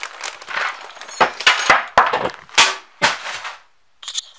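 Canvas backpack being packed and handled at close range: rustling fabric and a run of sharp knocks and clatters as gear is pushed into it, dying down to quieter rustles near the end.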